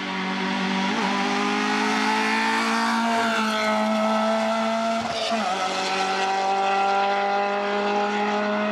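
Racing hatchback's engine held at high revs under hard acceleration up a hill-climb course, with a brief dip in revs about five seconds in before it pulls hard again.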